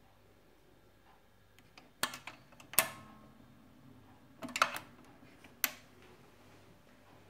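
Garrard RC 121 Mk2 record changer's mechanism cycling, heard with no amplifier connected: a series of sharp mechanical clicks and clunks, about two and three seconds in and again around four and a half to six seconds, over a faint steady hum.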